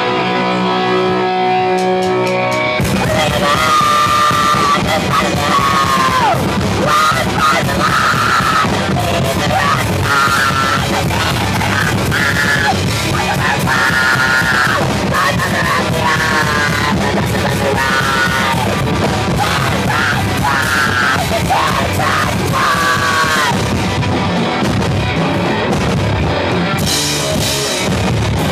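Punk rock band playing live: a guitar alone for the first three seconds, then drums, bass and guitars come in together and the singer yells the vocals over them.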